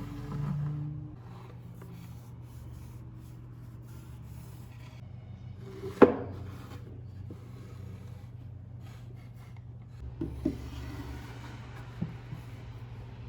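Household items being handled and set down: rubbing and scraping sounds, one sharp knock about six seconds in and a few lighter knocks near the end, over a steady low hum.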